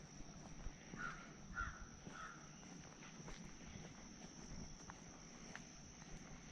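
A crow cawing three times about half a second apart, faint, over a thin steady high-pitched whine.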